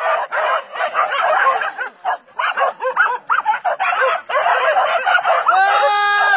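A pack of hunting dogs barking and yelping over one another as they bay and bite at a cornered wild boar, with a long held call near the end.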